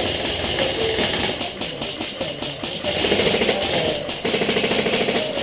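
Airsoft rifle firing on full auto, a rapid mechanical rattling buzz, heavier and steadier from about three seconds in.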